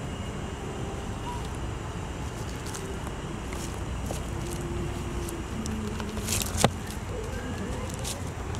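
Steady low outdoor background rumble, with scattered faint light clicks and one sharp click about six and a half seconds in.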